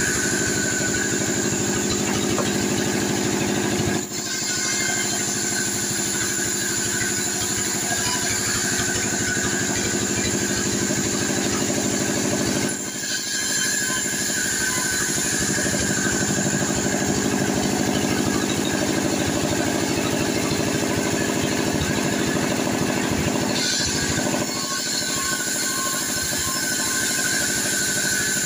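T 36 band sawmill running steadily while its blade cuts a sengon (albizia) log into boards, a continuous machine drone with sawing noise. The noise dips briefly twice, about four seconds in and again near the middle.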